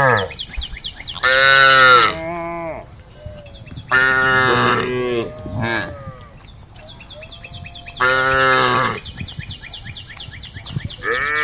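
Cows mooing: four long, loud moos a few seconds apart, each rising and then falling in pitch, with the last starting near the end.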